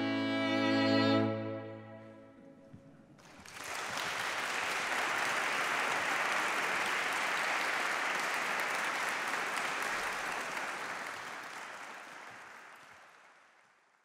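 A string quartet of two violins, viola and cello holds its final chord, which dies away about two seconds in. About a second later an audience starts applauding, and the applause fades out near the end.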